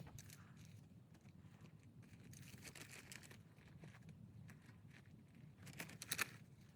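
Near silence, with faint rustling and scattered soft clicks, and a short cluster of louder clicks and rustles a little before the end.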